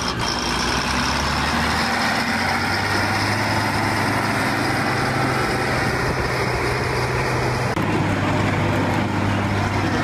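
Caterpillar 12G motor grader's diesel engine running steadily as the machine works a gravel road surface, with an abrupt change in tone about eight seconds in.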